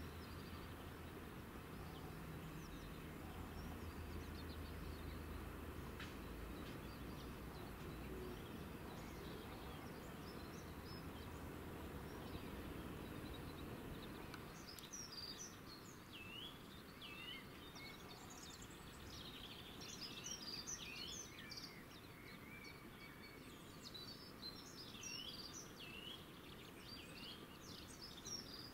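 Faint outdoor background: a low, steady rumble for the first half, then small birds chirping and twittering repeatedly from about halfway through.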